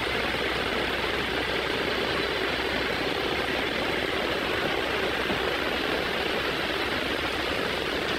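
Heavy rain pouring steadily onto a paved road and parked vehicles, an even hiss with no breaks.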